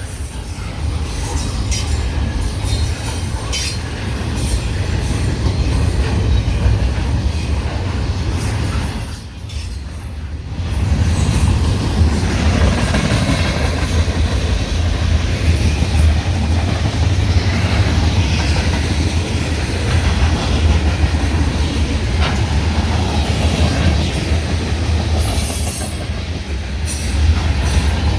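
Norfolk Southern freight train NS 238 rolling past: freight cars' wheels clacking over the rail joints, with high wheel squeals now and then.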